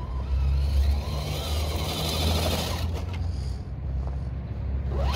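Axial SCX10 II RC crawler driving, its brushed electric motor and gearbox whining, the pitch rising and falling with the throttle, over a steady low rumble.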